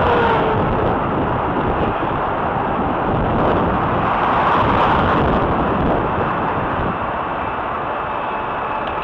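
Steady traffic noise of cars and tyres on the road, heard from a bicycle riding in the traffic, with wind rushing over the microphone.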